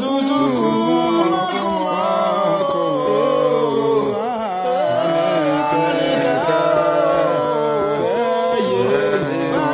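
One man's voice overdubbed in three parts, singing a cappella in harmony, with held notes that slide between pitches.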